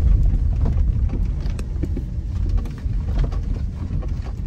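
Inside a car's cabin driving slowly on a bumpy dirt road: a steady low road-and-engine rumble, with scattered light clicks and knocks from the tyres and suspension over the uneven surface.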